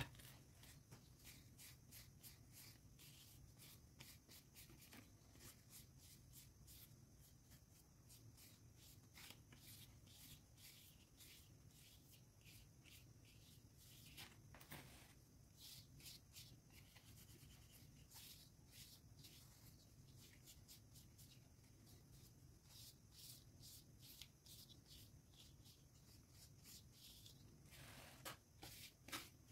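Near silence: faint scattered ticks and rubbing as hands handle the leaves of a potted anthurium, over a low steady hum, a little louder about halfway through and near the end.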